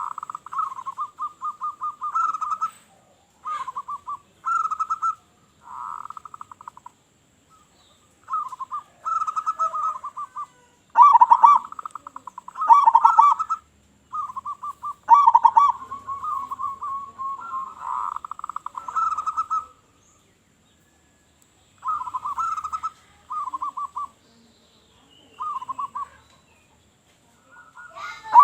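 Local zebra dove (perkutut) cooing: repeated phrases of rapid, rolling staccato notes, each phrase a second or two long, with short pauses between them and a longer break about two-thirds of the way through.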